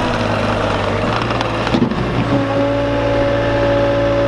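Cat skid steer's diesel engine running steadily, with a steady higher whine coming in a little past halfway.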